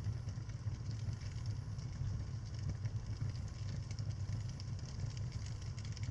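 Fire burning in a fireplace: a steady low rumble with scattered small crackles and pops.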